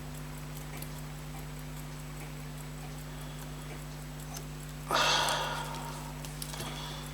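Faint clicks of steel tweezers working on a fusee pocket-watch movement over a steady electrical hum. About five seconds in comes a short noisy rush, the loudest sound, fading out over about a second.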